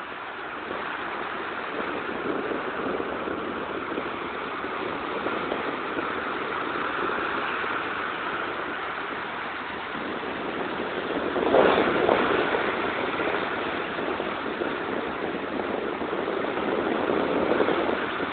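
Sea surf washing onto the shore, a steady rushing noise that swells and falls, with one louder surge of a breaking wave about twelve seconds in.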